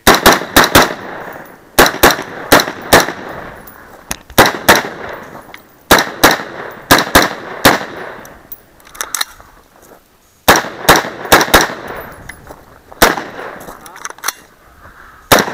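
Stag 3G AR-15 rifle firing rapid semi-automatic shots in quick strings of several shots each, with short pauses between the strings.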